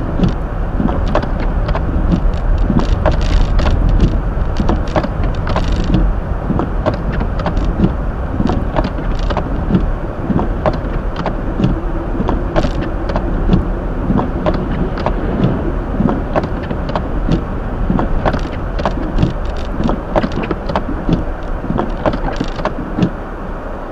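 In-cabin road noise of a Hyundai Elantra driving on a snow-covered street: a steady rumble and hiss of tyres and engine, with frequent small, irregular clicks and knocks.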